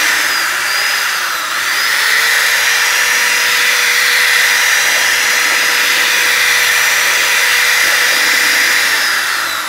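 Corded electric drill with a stirrer mixing wall paint thinned with water: a steady motor whine that dips and recovers about a second in, then winds down near the end as the trigger is released.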